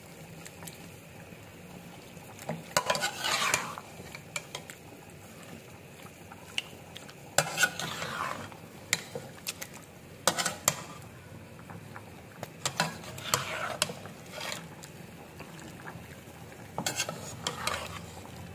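A metal spoon scraping and clinking against an aluminium cooking pot as chicken pieces are stirred and mixed, in short bouts every few seconds.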